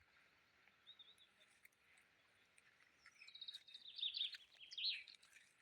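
A small bird singing: a single faint chirp about a second in, then a quick run of high chirps and trills for about two seconds, over a faint steady hiss.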